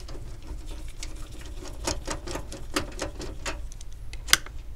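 Torx screwdriver turning and loosening the screws that hold the side panel of a desktop PC case: a run of small, irregular clicks and scrapes of metal on metal, with one sharper click about four seconds in.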